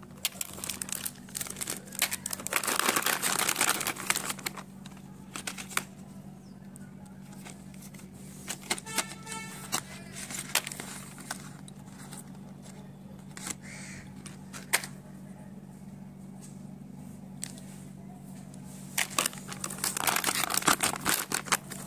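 Stationery packaging handled on a tabletop: plastic packaging crinkling in two spells, about two seconds in and again near the end, with scattered clicks of pens and crayons being picked up and set down, over a steady low hum.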